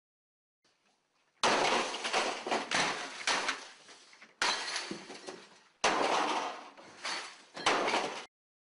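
A sledgehammer smashing a desk computer: four heavy crashing blows with smaller knocks and clatter between them, each dying away before the next, stopping abruptly.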